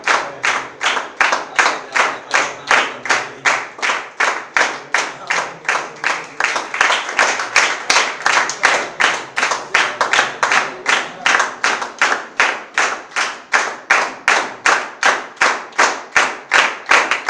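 A small audience clapping in unison to a steady beat, about two and a half claps a second, with no let-up.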